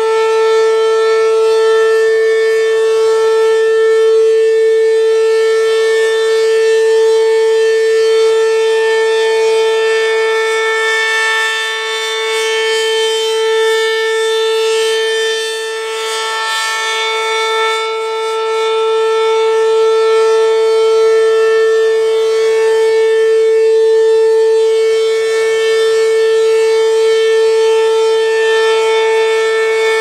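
ACA P-10 single-tone rotating electromechanical siren sounding a steady alert tone at full speed, its level slowly swelling and fading as the rotating horn sweeps past.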